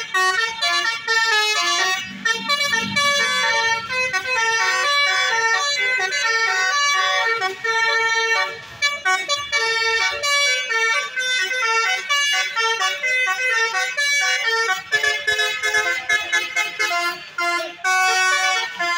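Bus's multi-tone 'telolet' horn playing a fast tune of short, stepping notes with hardly a break.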